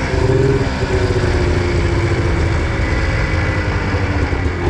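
Snowmobile engine running under steady throttle while riding, its pitch slowly falling over the first few seconds.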